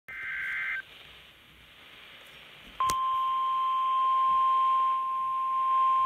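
NOAA Weather Radio EAS alert through a weather radio's speaker: a short burst of the warbling two-tone SAME digital header data, then a couple of seconds of hiss. About three seconds in, a click and the steady 1050 Hz warning alert tone start and hold, signalling that a warning follows.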